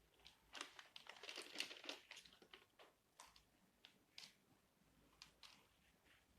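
Board game cards and components being handled: a second or so of crisp rustling and scraping, then a few separate light clicks and taps.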